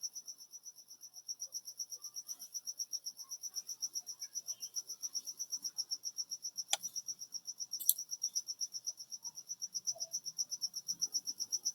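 A cricket chirping steadily in the background, a high tone in rapid, even pulses of about eight a second. Two faint clicks come about seven and eight seconds in.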